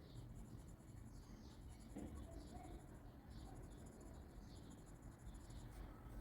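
Graphite pencil scratching on paper in short, repeated strokes, about two a second, as when shading or texturing a drawing. The strokes are faint.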